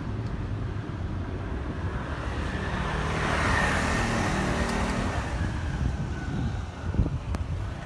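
A motor scooter overtaking close by, its small engine getting louder to a peak about halfway through and then fading away, over a steady low rumble.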